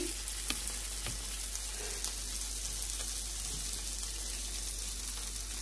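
Chicken boti pieces sizzling in oil in a frying pan: a steady, even hiss with a few faint clicks.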